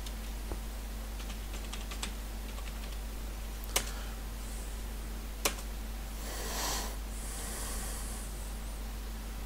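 Computer keyboard typing: a few light key taps, then two sharper keystrokes about a second and a half apart, followed by a short rustle. A steady low electrical hum runs underneath.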